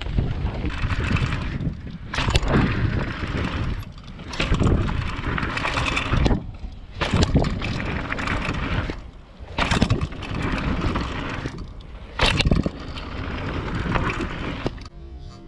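Downhill mountain bike rolling fast over a dirt and gravel trail: tyre rumble and the bike rattling, with repeated sharp knocks as it goes over the bumps and rollers.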